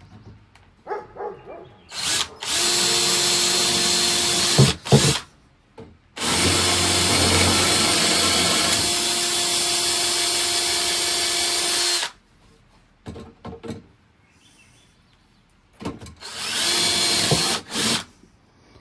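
Cordless drill boring through the steel brake band of a Caterpillar D4 crawler and its riveted lining, making the through holes for carriage bolts. It runs three times with a steady whine, the middle run about six seconds long, with a couple of sharp knocks after the first run.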